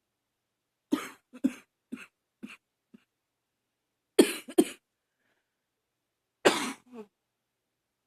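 A woman coughing in fits: a run of five coughs that trail off, then two hard coughs a few seconds later and a final pair near the end. It is a morning allergy cough, as she describes it, barking and wheezing.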